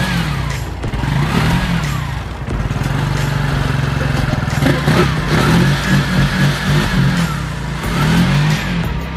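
Piaggio Ape City's 230cc four-stroke, air-cooled engine running, heard from underneath the vehicle, its pitch rising and falling in slow waves every second or two.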